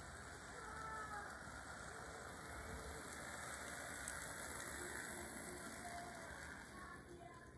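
Model train rolling past on track: a steady rushing of wheels and motor with a few faint, brief squeals, fading near the end as it moves away.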